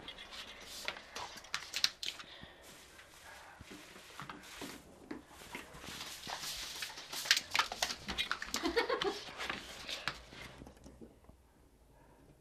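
Husky's claws clattering and scrabbling irregularly on the floor as she runs about, dying away in the last second or so.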